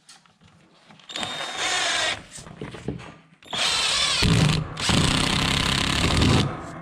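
Cordless drill-driver driving a wood screw into the timber frame of attic stairs: a short run about a second in, a few brief spurts, then a longer run under load of about three seconds that stops shortly before the end.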